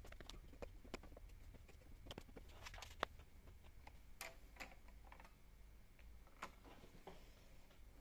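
Faint, scattered clicks and taps of hard plastic being handled as a clear acrylic stamping platform and stamp are positioned over paper, with one sharper click about three seconds in.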